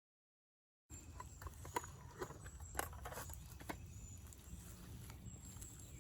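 About a second of dead silence, then faint outdoor background with a few scattered soft clicks and taps.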